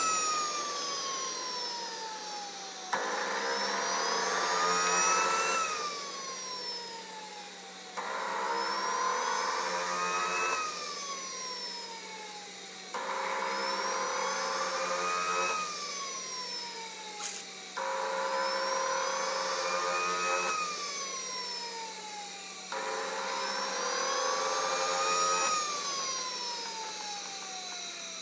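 GR180 model turbojet in its cooling cycle after shutdown: the electric starter cuts in about every five seconds and spins the turbine up with a rising whine for a couple of seconds, then cuts out and the rotor whines down as it coasts. Five such spin-ups, with one sharp click partway through.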